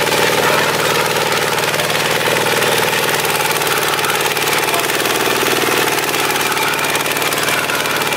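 Singtothong STT155 small tractor's single-cylinder diesel engine running steadily under load while it pulls a four-disc plough through the soil.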